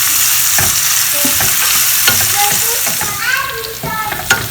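Shallots and green chilies sizzling in hot oil in a pan, with a steady hiss and the repeated scrape and tap of a spoon stirring them.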